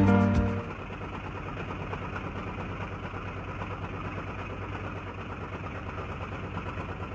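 Diesel engine of a motorized longboat running steadily under way, a low, even drone with a fast regular beat. Background music fades out in the first half second.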